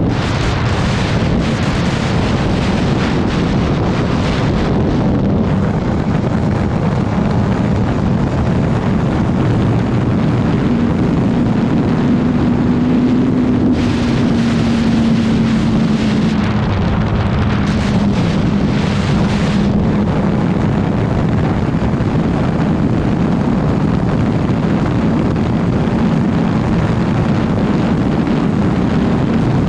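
Wind rushing over the microphone at riding speed, with the 2019 Suzuki GSX-R750's inline-four engine running underneath; its note rises slightly around the middle and then settles back.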